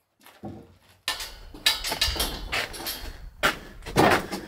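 Heavy sawn timber beam being manhandled into place: repeated wooden knocks and scraping, with a few loud thuds near the end.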